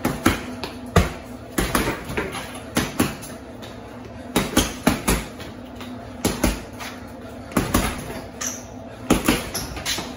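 Punches landing on a 100-pound heavy bag: sharp thuds in quick combinations of two or three, with short pauses between.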